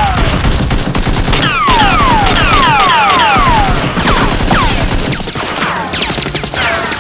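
Rapid gunfire sound effects: a fusillade of shots laced with quick falling whistles, thinning out about five seconds in, over background music.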